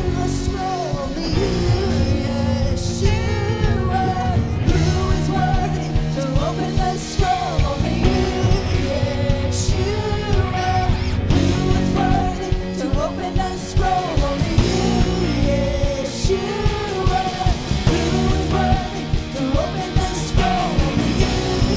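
Live worship band music in a rock style: a woman singing lead over a steady drum beat and full band.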